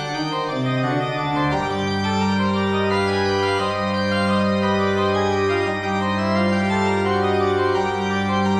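Organ music: slow sustained chords over a long-held bass note that comes in about one and a half seconds in.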